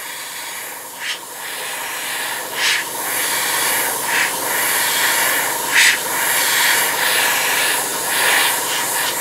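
Airbrush blowing plain air with no paint, drying freshly sprayed paint on a plastic model: a steady hiss that swells about every second and a half, stopping abruptly near the end.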